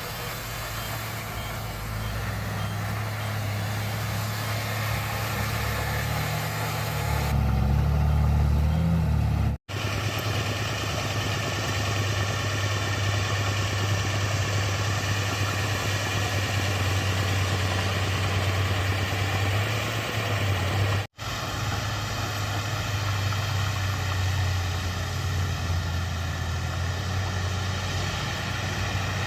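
Bulldozer's diesel engine running steadily with a deep drone, louder for a couple of seconds before the first break. The sound breaks off for an instant twice, at edit cuts.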